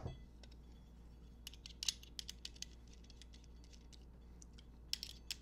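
Small clicks and light metallic ticks of bolts being picked up and threaded by hand into a motorcycle clip-on handlebar clamp, with a sharper knock right at the start and a few clicks near the end.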